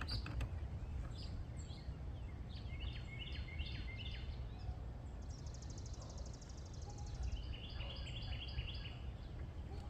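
Outdoor background: a steady low rumble with birds chirping in short repeated series, and a fast buzzy trill about halfway through.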